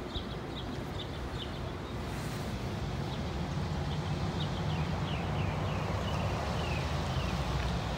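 Low hum of a hi-rail truck approaching along the track, growing slowly louder, with birds chirping in short repeated notes over it.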